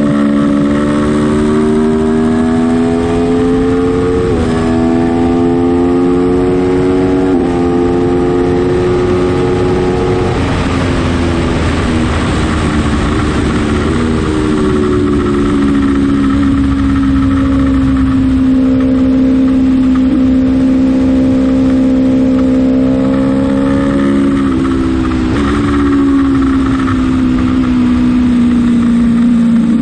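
Aprilia Tuono motorcycle engine on track, heard onboard: it revs up through the gears with quick upshifts about 4 and 7 seconds in, fades under a rush of wind noise for a few seconds, holds a steady high-speed run, then steps up in revs twice on downshifts near the end before settling lower.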